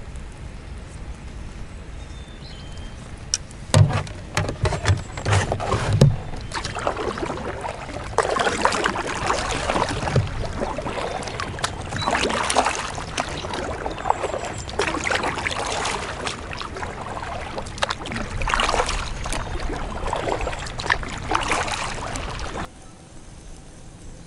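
A double-bladed kayak paddle dipping and splashing in the water as a Pelican Catch 120 fishing kayak is paddled, with a swell of splashing every few seconds. There are a few sharp knocks on the kayak early on, and the splashing stops abruptly near the end.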